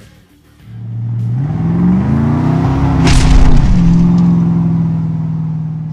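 Outro sound effect of a car engine revving up, rising in pitch, with a loud hit about three seconds in, then settling into a steady held tone that slowly fades.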